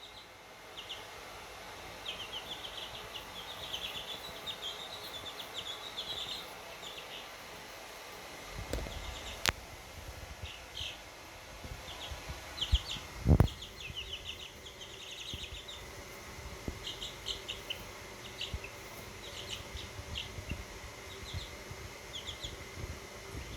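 Cheonggye chicks peeping in quick runs of short, high chirps, with a few low thumps about nine and thirteen seconds in.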